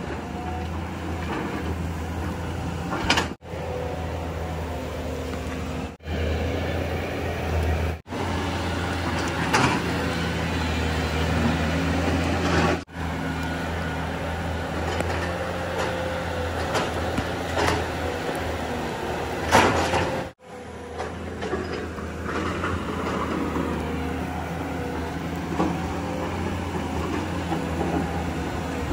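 Tata Hitachi hydraulic excavator's diesel engine running steadily while it digs, with a few sharp clanks and scrapes. The sound breaks off for a moment several times.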